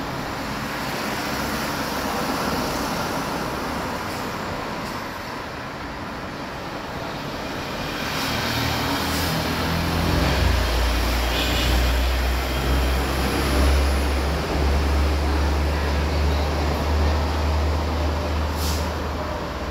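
Airbus A330-243 jet engines, Rolls-Royce Trent 700 turbofans, making a steady rushing roar as the airliner climbs away. A deep rumble underneath grows much stronger about halfway through.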